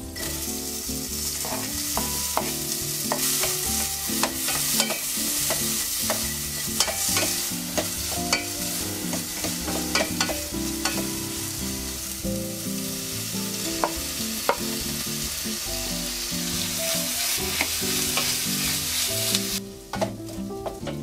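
Sliced onions frying and sizzling in butter in a stainless steel pot, stirred with a wooden spatula that clicks and scrapes against the pot. The sizzle dies down near the end.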